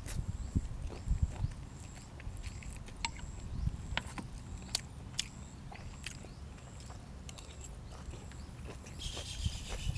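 Close-miked chewing and wet mouth smacking, with scattered sharp clicks.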